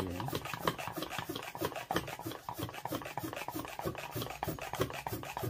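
Small plastic hand-pump pressure sprayer being pumped: the plunger is worked up and down in quick, even strokes, each a rubbing, rasping sound, to build up pressure in the tank before spraying.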